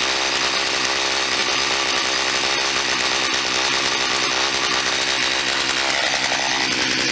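Poulan two-stroke gas chainsaw engine running steadily, newly running again after new fuel lines, filter and carburettor but still needing a little tuning. About six seconds in it revs up, the pitch rising and then holding higher.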